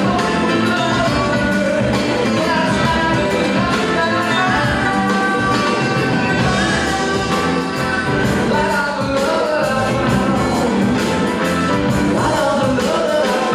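Recorded song playing for the dance: a singer over a band with a steady, even beat.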